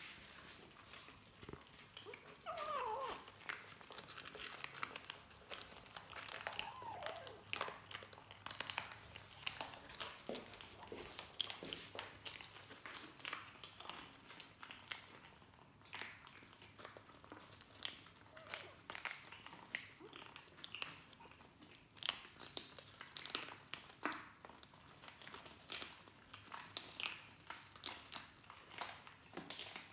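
Young kittens crunching dry kibble: a steady scatter of small crunches and clicks. A short falling mew comes about two and a half seconds in, and another around seven seconds.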